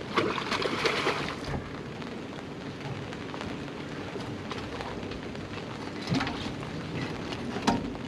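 Rain falling and pattering on surfaces, with scattered sharp drop ticks; it is louder and denser in the first second and a half.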